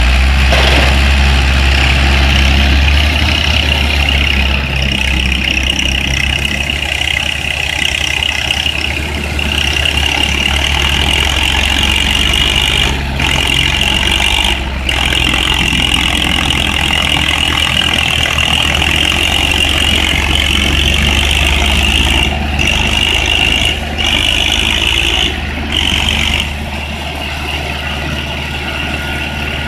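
A Tafe 42 and an Ursus C-360, two old diesel farm tractors, running hard as they pull against each other in a tug of war; a steady low engine drone, with a few brief dips in loudness in the second half.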